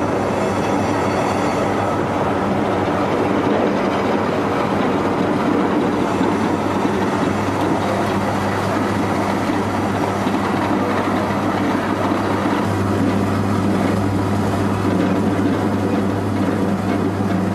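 Small rice mill running steadily while it husks paddy into brown rice on a second pass: a steady motor hum under the rushing rattle of grain through the machine. The hum grows stronger about two-thirds of the way in.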